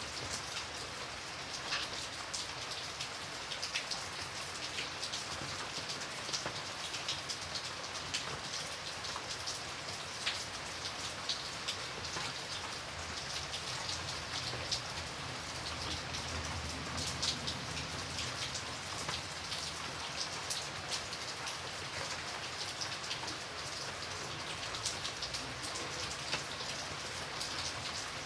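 Light rain falling steadily, a soft hiss of rain with many separate drops pattering on a surface.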